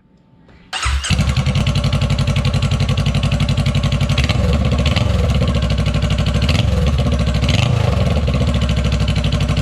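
Honda Rebel 500's parallel-twin engine starting about a second in and idling through a freshly fitted Shorty GP slip-on muffler, a loud, even pulsing. Twice the pitch briefly rises and falls.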